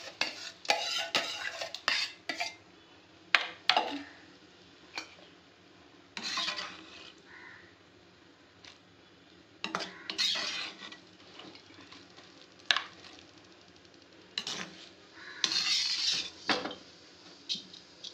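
Metal spoon clanking and scraping against a steel vessel and the pressure cooker as cooked dal and then the greens mixture are scooped into the cooker. There is a run of sharp clanks in the first few seconds, then occasional knocks and longer scrapes with quiet gaps between.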